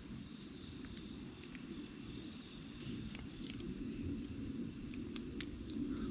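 Wood fire burning in a campfire grill: a few sparse crackles and pops over a low steady noise.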